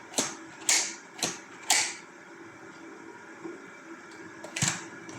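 Hard plastic clicks and snaps from the parts of a Dyson V12 cordless vacuum being handled and taken apart: four sharp clicks about half a second apart in the first two seconds, then one more near the end.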